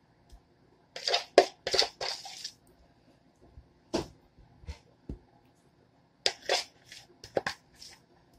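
Spoon scraping and knocking against a plastic mixing bowl while stirring a mixture: a run of quick scrapes and clicks about a second in, single knocks in the middle, and another run near the end.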